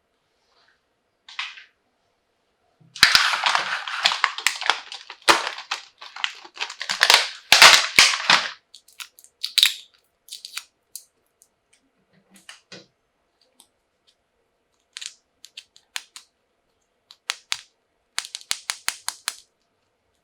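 Plastic toy packaging crinkling and crackling as it is handled and opened, followed by scattered light clicks of plastic pieces and a quick run of about ten clicks near the end.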